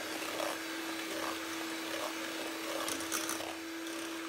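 Electric hand mixer running at a steady speed, its beaters whisking eggs and sugar in an enamel pot: an even motor hum, with a few faint ticks about three seconds in.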